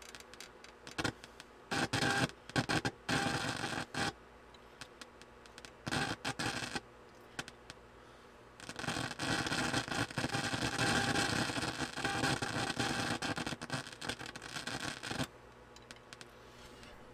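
Staticky output from a Marantz 2500 receiver as a 455 kHz test signal with 400 Hz modulation is injected into the final IF stage of its IC. Short bursts of static come and go in the first half, then it runs steadily for about six seconds before cutting off. The owner takes this static for the sign of a bad integrated circuit.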